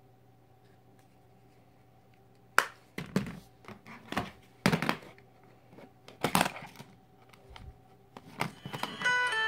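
Handling of cell phones: a sharp click about two and a half seconds in, then a series of knocks and rustles as a Nokia flip phone is set down among other phones. Near the end a phone's electronic tune of stepped beeps starts.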